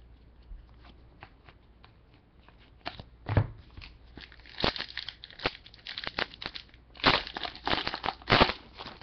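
Foil trading-card pack wrapper crinkling and being torn open by hand, in scattered crackles that grow busier and louder after about three seconds.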